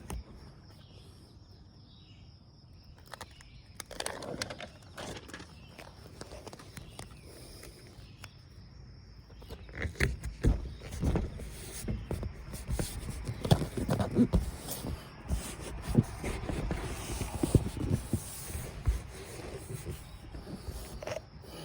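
Handling noise from a repair tape being worked onto an RV awning: irregular rubbing, crinkling and light taps, sparse at first and busier from about halfway through.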